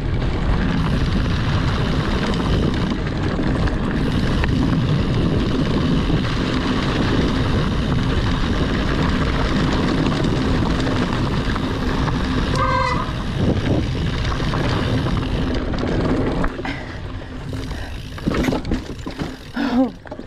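Specialized Enduro full-suspension mountain bike rolling fast over a dry dirt and gravel trail: steady tyre crunch and rattling of the bike, with wind on the microphone. A brief high squeal comes about two-thirds of the way through, and near the end the noise drops a little, with a few knocks.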